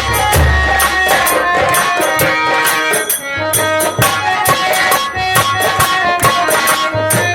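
Nautanki folk-theatre instrumental music: pitched instruments playing over a fast run of jingling percussion strokes and recurring deep drum notes.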